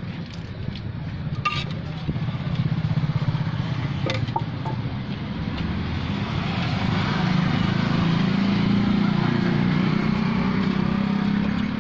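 Engine running with a steady low throb, growing louder over the second half. Two sharp clicks, about a second and a half and about four seconds in.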